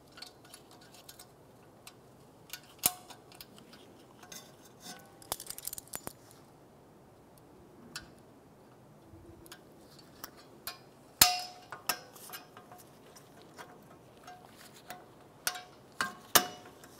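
Scattered metallic clicks and clinks as a steel return spring is stretched with locking pliers and hooked onto the parking brake shoes. There are irregular sharp ticks, with a louder, briefly ringing clank a little past the middle.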